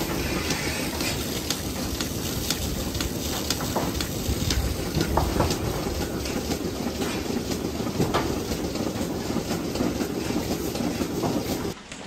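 DeLaval milking machine running in a milking parlour: a steady hiss and rumble from the vacuum system with scattered clicks and clatter from the milking units. It drops away shortly before the end.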